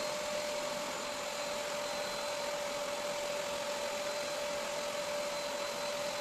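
Bissell SpotClean Pro upholstery extractor's motor running steadily: one high, even hum over a hiss.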